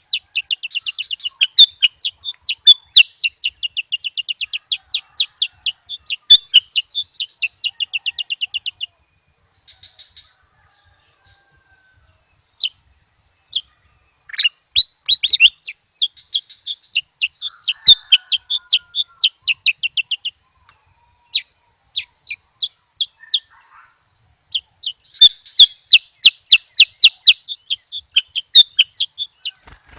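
Bulbul song: fast runs of sharp, repeated chirping notes in three long bursts with short pauses between, over a steady high hiss.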